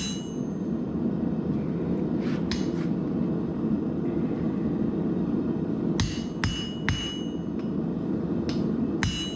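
Forging hammer striking hot 5160 leaf-spring steel on an anvil: three blows about two seconds in, then a steady run of blows from about six seconds, each with a short ring. Under it the propane forge's burner runs steadily.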